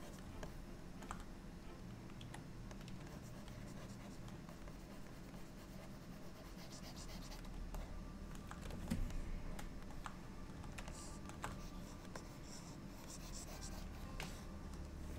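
Scattered light clicks of computer keys with a few short scratchy strokes, over a low steady hum; a brief louder cluster of clicks about nine seconds in.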